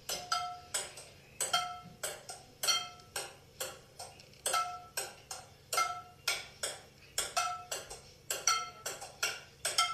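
A ping-pong ball rallied across a wooden table with a frying pan as a bat: a steady run of light clacks, about two or three a second, as the ball bounces on the table and is struck back. Many of the hits set the metal pan ringing briefly.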